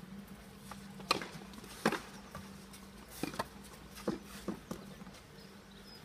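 Several sharp knocks of tennis balls being struck and bouncing on the courts, the two loudest about a second in and just before two seconds, then a quicker cluster around three to five seconds in, over a steady low hum.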